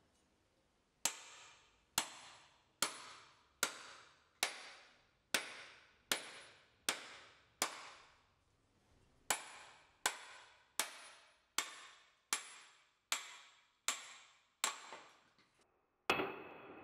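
Restored sledgehammer's steel head striking the back of a hatchet again and again to drive it into a log. The blows come steadily, a little more than one a second, and each is a sharp metal-on-metal clink with a short ring. There is a brief pause about halfway. Near the end a duller crash follows as the log splits apart.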